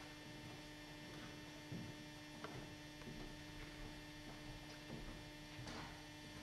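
Steady electrical mains hum at low level, with a few faint scattered knocks and rustles.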